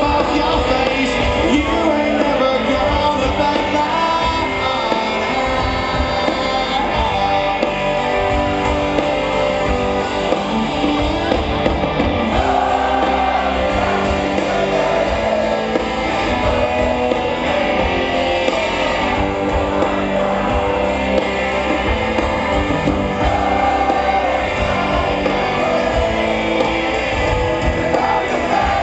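Live rock band playing a song with singing, loud and continuous throughout.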